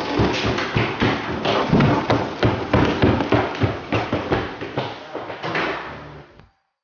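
A rapid, irregular run of thumps and knocks, several a second, that cuts off suddenly near the end.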